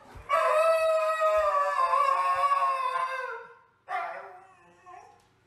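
Husky howling: one long howl that slowly sinks in pitch, then a shorter, falling howl about four seconds in.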